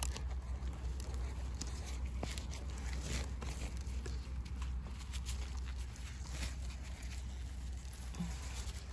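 Crackling and rustling of spruce-needle litter and handling noise as a bolete mushroom is pulled and twisted out of the forest floor by hand, with scattered short clicks over a steady low rumble.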